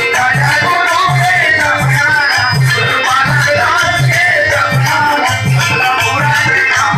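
Live devotional song: male voices singing to harmonium, with tabla keeping a steady beat of about two strokes a second and small brass hand cymbals (manjira) jingling throughout.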